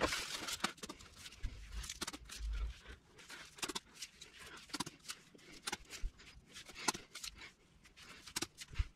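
Plastic drinking straws being handled and laid down on carpet: faint, scattered light clicks and rustles.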